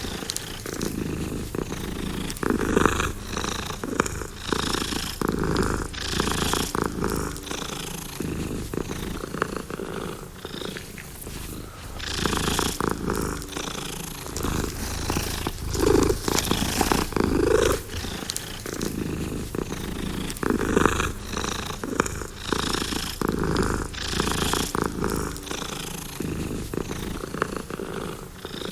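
Domestic cat purring close up, a continuous rough buzz that swells and eases with each breath, about one breath every couple of seconds.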